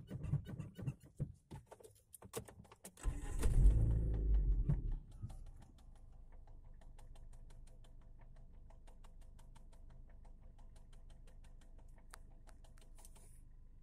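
Clicks and knocks inside an Iran Khodro Samand's cabin. About three seconds in, a loud low rumble lasts about two seconds as the engine starts, then settles into a steady low idle hum with faint fast ticking.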